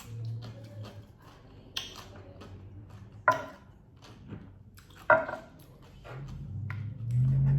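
Three sharp clinks and knocks of tableware being handled and set down on a table, spaced a second or two apart, over a faint low hum. Low music swells in near the end.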